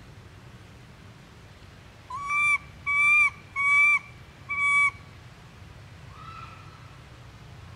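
Young long-tailed macaque giving four high-pitched coo calls in quick succession, each about half a second long and held at one pitch, then a fainter fifth call. These are the contact calls of a juvenile looking for its mother.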